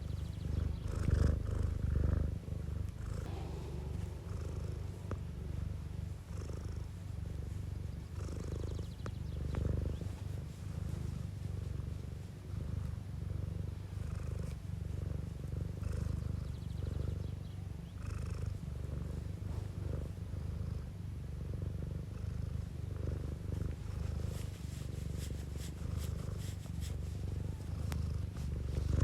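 Domestic cat purring steadily and close, a low continuous rumble rising and falling with each breath in and out.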